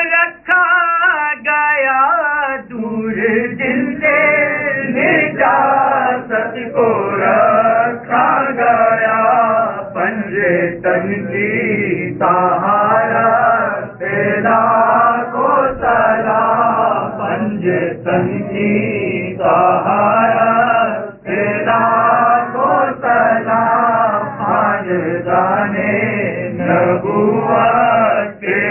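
Men's voices chanting an Urdu salaam (naat) in praise of the Prophet, without instruments. A lead reciter is joined by other men singing along in chorus.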